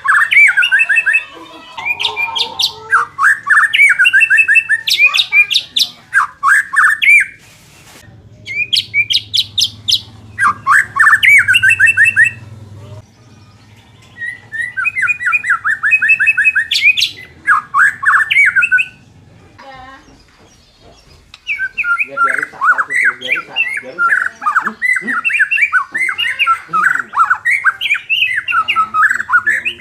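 White-rumped shama (murai batu) singing in loud, rapid phrases of quick repeated chattering and whistled notes, broken by a few short pauses: the kind of fierce song played to rouse a murai batu's fighting spirit.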